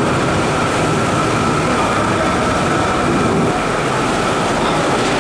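Steady, loud rumbling noise with a faint high hum, an unbroken machine-like din filling a large kitchen.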